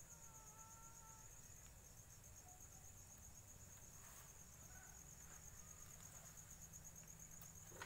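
Near silence with faint, steady cricket trilling, a fast even pulse.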